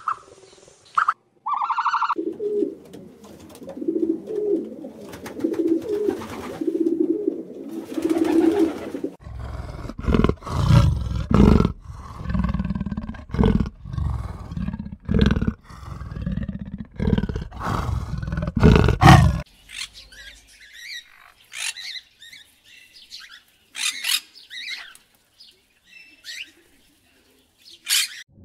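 A run of animal calls: low rhythmic calls for several seconds, then a series of loud, deep roaring calls about one a second that stop around two-thirds of the way through, then scattered high squawks and chirps of macaws.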